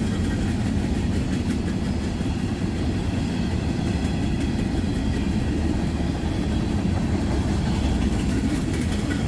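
Freight train of tank cars rolling past, a steady low rumble of wheels on the rails.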